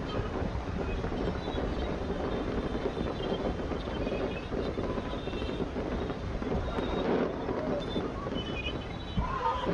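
Low, continuous rumble of a fireworks display, heard over wind buffeting the microphone.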